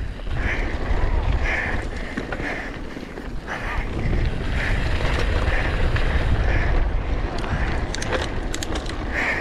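Wind buffeting the microphone and tyres rumbling over a dirt trail as a mountain bike rolls downhill at speed, with a quick run of rattling clicks from the bike about eight seconds in.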